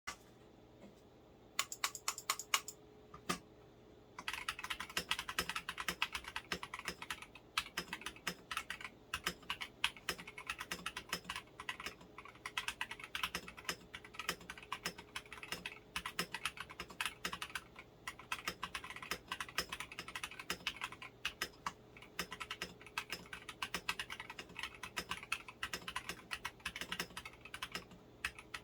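Stock, unmodified NextTime75 mechanical keyboard with NK Silk Yellow linear switches being typed on: a few separate keystrokes, then about four seconds in, fast continuous typing.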